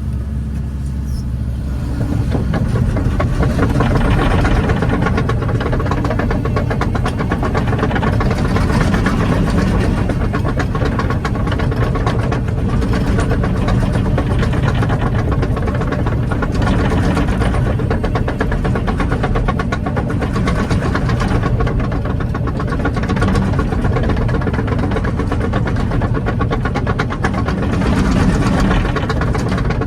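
Kobelco 20-tonne excavator's diesel engine running steadily as the machine tracks, louder from about two seconds in.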